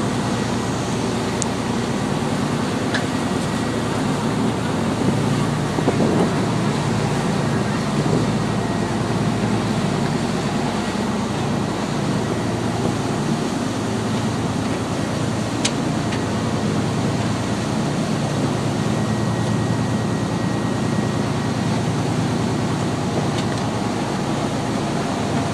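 Boat engine running steadily under way, with a constant rush of wind and water.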